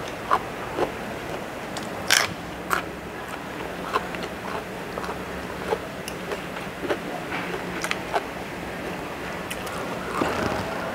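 Close-up chewing and biting of food, with scattered sharp clicks and crunches from a fork and spoon on a plate; the loudest click comes about two seconds in.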